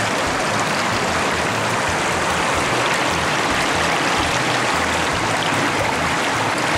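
River rapids rushing over and between rocks: a loud, steady rush of white water.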